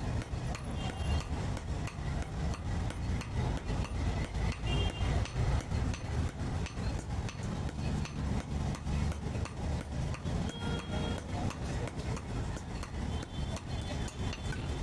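Blacksmith's hammer striking metal in a steady run of blows, about three a second, with occasional brief high ringing.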